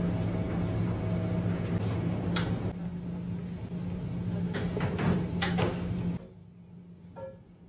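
Knife and fork clicking and clinking against a porcelain plate while cutting into a sauced grilled squid, over a steady low hum. The hum cuts off suddenly about six seconds in, leaving one faint clink near the end.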